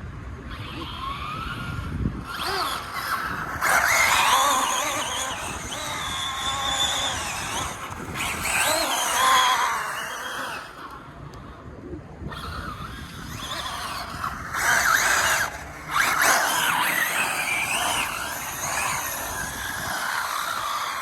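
Large-scale 8S electric RC car being driven hard: the motor and drivetrain whine rises and falls in pitch as it speeds up and slows down, with tyre squeal and skidding on pavement.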